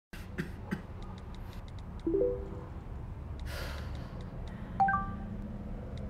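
Smartphone messaging sounds: light keyboard taps clicking, and two short bell-like message alert chimes, the second higher, about two seconds and five seconds in. A breathy sigh comes between them, over a soft low music bed.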